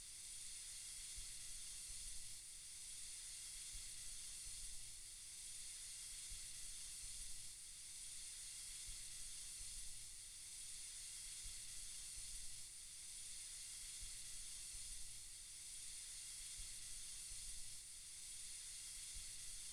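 Soft, steady hiss of white noise, swelling slightly about every two and a half seconds.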